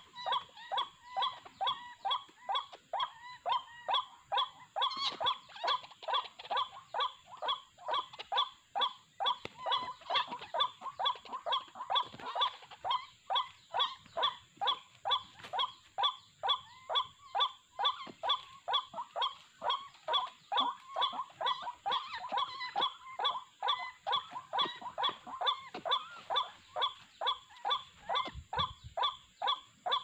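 White-breasted waterhen's harsh 'wak-wak' call, repeated evenly about twice a second without a break.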